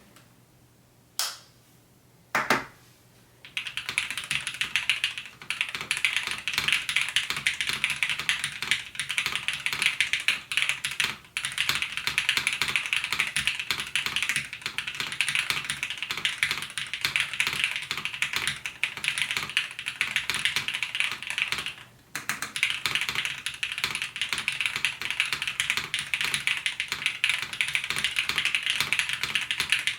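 Custom mechanical keyboard with linear switches (Everglide Peacock Blue bottoms under Cherry top housings), o-ring mounted on a 5052 aluminium plate with CRP R4 keycaps, being typed on. Two single keystrokes come first, then fast continuous typing from a few seconds in, broken by two brief pauses.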